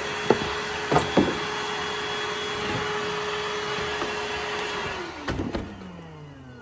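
Vacuum cleaner running steadily with a constant motor whine, with three sharp knocks in the first second or so. About five seconds in it is switched off, and the motor winds down in a falling whine.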